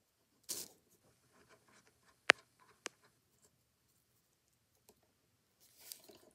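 Small metal handling sounds as fingers thread a brass nut onto the ratchet pawl shaft of an Edison Home phonograph motor: a brief scrape about half a second in, one sharp click a little past two seconds (the loudest), a lighter click soon after, faint ticks, and more rubbing near the end.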